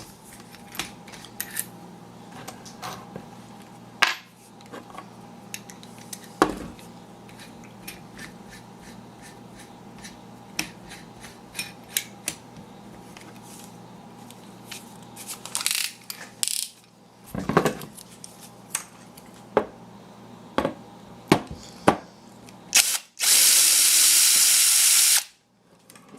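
Scattered clicks and knocks of tools and parts being handled, then near the end a power drill runs steadily for about two seconds and stops, backing out the single screw that holds the cover plate on the power window motor.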